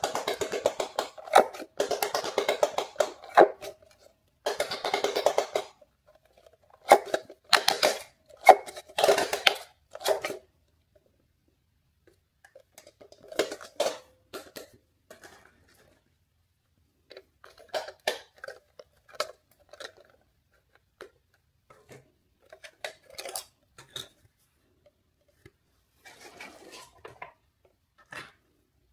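Silicone bubbles of a handheld pop-it push game being pressed in quick succession: dense runs of soft pops and clicks for the first several seconds, then a few louder separate clicks. Later come sparser, quieter clicks and knocks of hard plastic being handled as the toy is turned over and its battery cover unscrewed and taken off.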